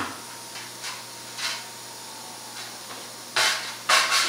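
Short bursts of hissing noise: a weaker one about a second and a half in, then two loud ones close together near the end.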